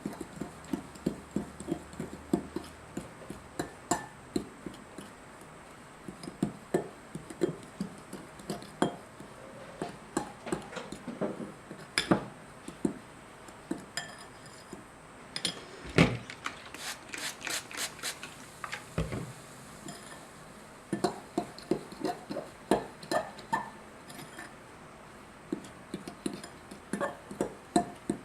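Spoon stirring a damp powder mixture in a mixing bowl, tapping and scraping against the bowl in irregular knocks, with a quick run of sharper clicks about two-thirds of the way through.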